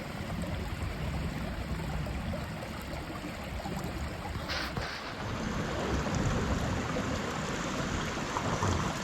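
Mountain stream flowing steadily, an even rush of water, with a short higher hiss about halfway through.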